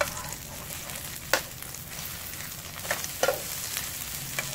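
Egg-and-vegetable dumplings sizzling steadily in oil in a nonstick frying pan, with a metal slotted spatula knocking and scraping against the pan about five times as it works them.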